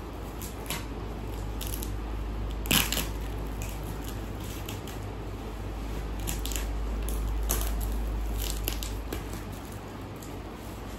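Plastic packaging crackling and crinkling in short scattered bursts, with a sharper snap about three seconds in, over a steady low hum.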